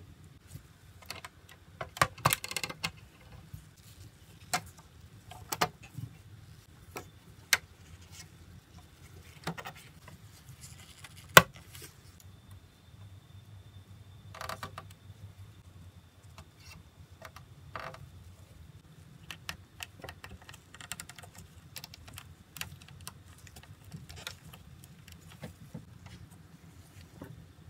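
Parts of a Chogokin Thousand Sunny model ship being handled and fitted by gloved hands: scattered small clicks and light knocks with short rustles. The sharpest click comes about eleven seconds in.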